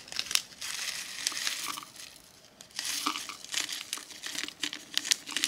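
Small plastic bag of sequins crinkling as it is opened and handled. About three seconds in, sequins begin dropping into a clear plastic container with many quick light ticks.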